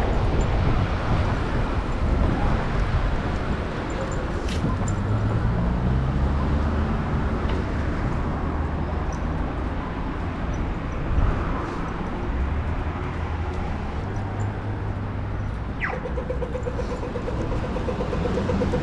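Strong wind buffeting the microphone, a continuous low rumble that rises and falls. Near the end comes a short falling whistle, then a fluttering tone.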